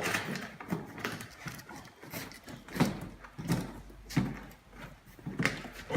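Cardboard display stand being folded around by hand into a rectangle, its tabs tucked into place: an irregular series of short scrapes, rustles and soft knocks.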